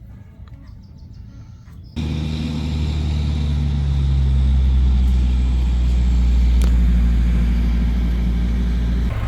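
A machine running with a steady low hum, starting abruptly about two seconds in and swelling slightly in the middle before it changes near the end.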